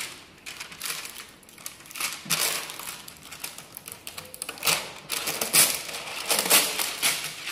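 Plastic adhesive film rustling and crinkling, with light clicks of keys, as a film-covered computer keyboard is handled. The sounds come in irregular short bursts.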